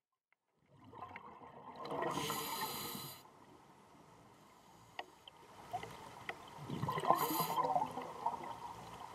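Scuba regulator breathing underwater, recorded close to the diver: two breaths about four to five seconds apart, each a hiss with bubbling exhaust. The sound fades in under a second in.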